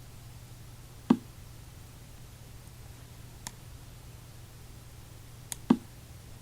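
Two short wooden knocks of an online chess board's piece-move sound, about a second in and again near the end, with two fainter sharp clicks between them over a steady low hum.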